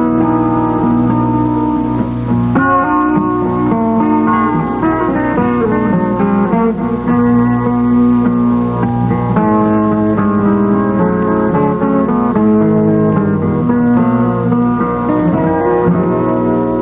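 Instrumental background music with plucked guitar notes.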